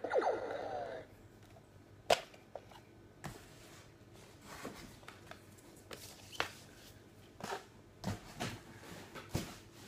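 Scattered sharp clicks and soft rustles of plastic toys and packaging being handled and rummaged through, about eight separate ticks. A brief wavering pitched sound fades out in the first second.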